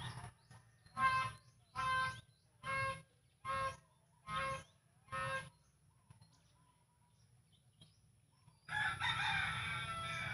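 A bird calls six times at an even pace, about a call every second, then a rooster crows once for about two seconds near the end.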